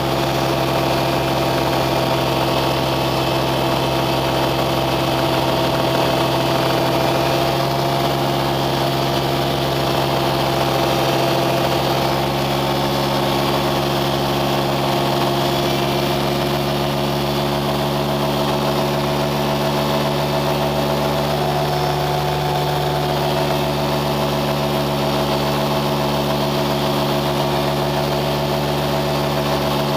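An engine running steadily at an unchanging pitch.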